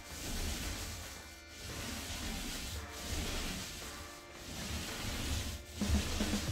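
Paint roller on an extension pole rolling an undercoat across a drywall ceiling: a rough, sticky hiss that swells and fades with each stroke, about one stroke every one and a half seconds.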